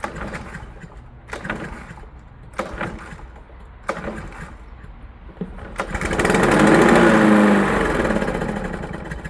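Lawn mower engine being pull-started: a few short cranking pulls a little over a second apart, then about six seconds in it catches and runs loudly for a couple of seconds before fading as it dies again. It starts but won't stay running, which the owner puts down to the mower having got wet in the rain.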